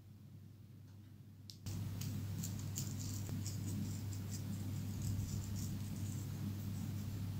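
Dried herb flakes being sprinkled over a bowl of sauced fries: a light scatter of tiny crackly ticks over a steady low hum that comes in about a second and a half in.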